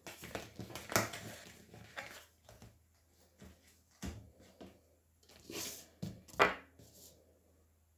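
Hands gathering tarot cards and sliding them over a plastic tablecloth: scattered light taps, rustles and brushing. Small ceramic jug ornaments are moved and set on the table, with the loudest knock about six and a half seconds in.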